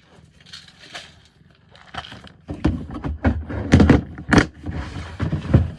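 A run of loud knocks and thuds with rustling between them, starting about two and a half seconds in after faint rustles.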